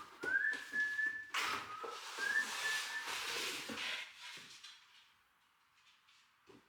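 A few short whistled notes that glide up and hold, over scraping and rustling handling noise with scattered knocks that die away about four seconds in.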